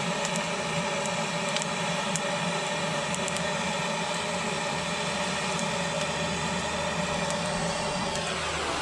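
Handheld gas blowtorch flame hissing steadily into lump charcoal to light it. Just before the end the pitch of its sound drops as the flame is turned down.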